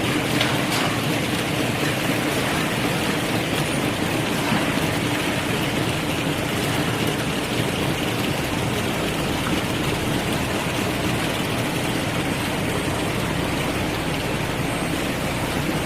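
Machinery of a mandarin sorting line running steadily, an even mechanical noise with a faint low hum.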